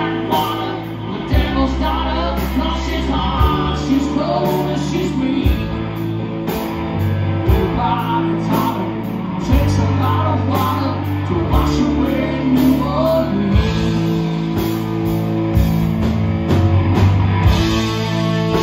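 Live country-rock band playing an instrumental section: electric guitars, bass guitar and drum kit, with a lead line that bends up and down in pitch over a steady beat.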